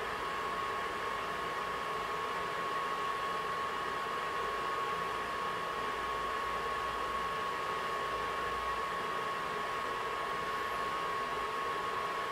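Cooling fan of a 1064 nm DPSS laser and its driver running: a steady whir with a constant thin, high whine, unchanged while the drive current is turned up.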